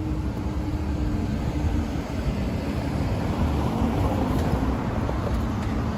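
Steady low rumble of passing vehicles at a level crossing.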